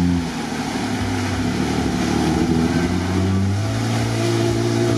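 A 4x4 SUV's engine running under heavy load as it churns through a mud-filled pit, with mud and water spraying from the wheels. The revs rise about three and a half seconds in as it climbs out.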